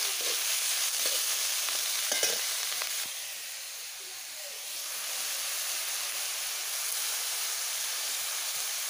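Chicken pieces sizzling as they fry in oil in a steel wok, with a few scraping stir strokes against the pan in the first two seconds or so. The sizzle drops away about three seconds in and picks up again about two seconds later.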